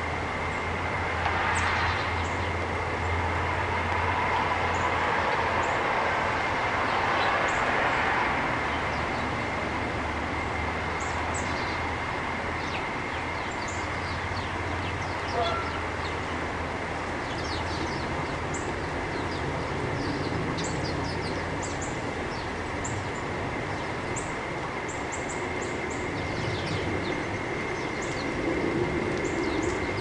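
Many short, high chirps from small birds at the feeder, coming more often in the second half, over a steady hiss and a low rumble that fades after the first half.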